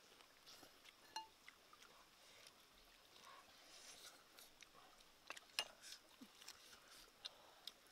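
Faint, scattered clicks of eating by hand from an earthenware dish of curry, with a sharper clink about five and a half seconds in as a metal scoop is set against the clay bowl.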